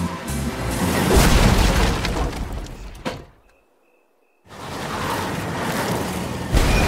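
A vintage car smashing through a wooden plank fence: a loud crash with splintering wood about a second in. It dies away to near silence for about a second, then a rumbling noise of the car comes back and swells near the end.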